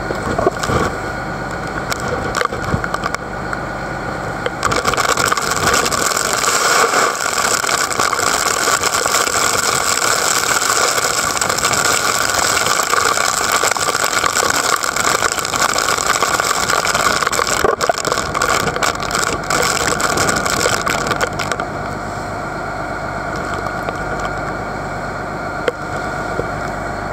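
Boat under way in heavy rain and strong wind: wind and spray rushing over the open deck, with the boat's engine running steadily underneath. The rushing is loudest from about five seconds in until about twenty-one seconds, then eases a little.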